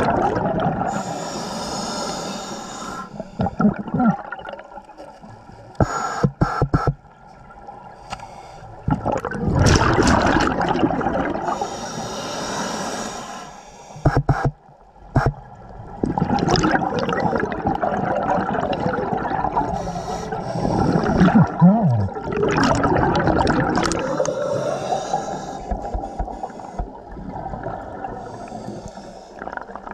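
A scuba diver breathing underwater through a regulator. Each inhale gives a high hiss and each exhale a long gurgling rush of exhaust bubbles, repeating every several seconds.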